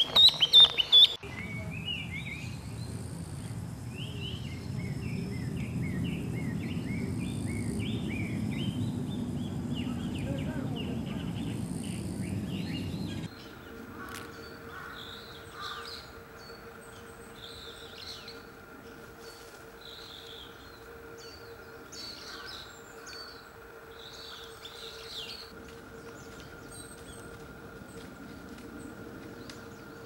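A Chinese hwamei singing: a fast, varied run of whistled phrases over a low rumble. About 13 seconds in, the sound changes abruptly to sparser, higher bird calls over a faint steady hum.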